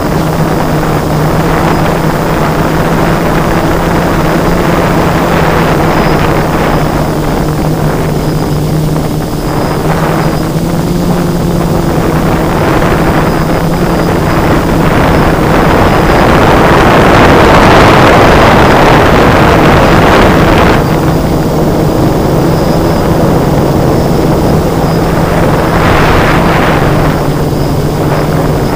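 Motor and propeller noise of an FPV drone, heard through its onboard camera: a steady low hum with a faint high whine and a rush of air that swells to its loudest a little past halfway and again briefly near the end.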